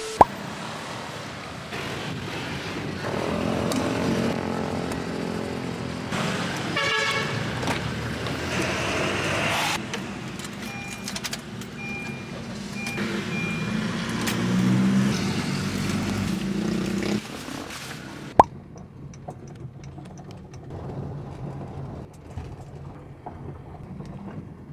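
Car cabin noise while driving: engine and road noise heard from inside the car, with a short high beep repeated a few times around the middle and a sharp click about eighteen seconds in. The sound turns quieter and duller for the last few seconds.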